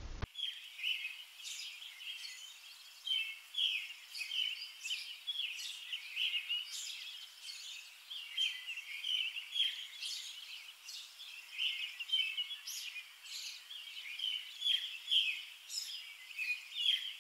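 Small songbirds chirping and twittering without pause, many short high calls overlapping one another.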